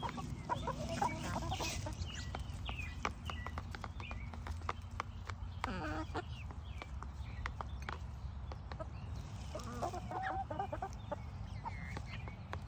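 Backyard chickens clucking in short bursts of calls, with frequent sharp taps throughout.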